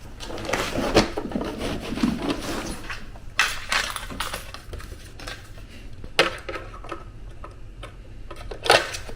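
Handling noise: scattered clicks, knocks and rustling, with a few sharper knocks, over a low steady hum.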